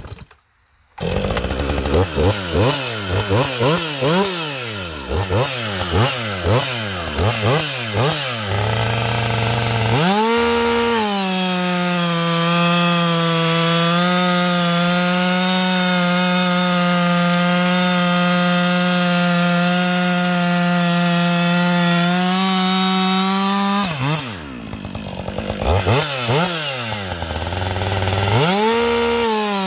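A 60cc two-stroke professional chainsaw starts about a second in and is revved up and down several times. It then runs at full throttle for about thirteen seconds while cutting through a log. It drops back toward idle and is revved up again near the end.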